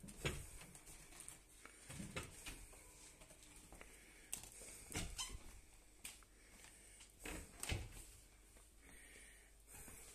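A few faint, scattered knocks and clicks, spaced a second or two apart, over quiet room hum.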